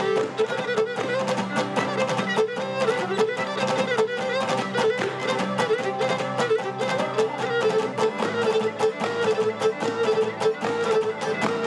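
Cretan lyra bowing a fast dance tune on quick repeated notes, with two laouta (Cretan lutes) strumming a dense, driving rhythm underneath.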